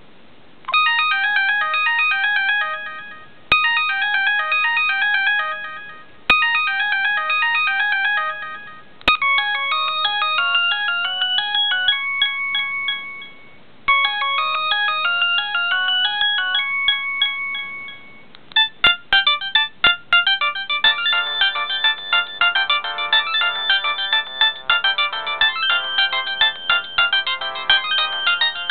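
LG A100 mobile phone playing its built-in ringtones through its loudspeaker. A short falling run of notes plays three times, then a longer tune with a held note plays twice, then a faster, busier tune starts a little past halfway.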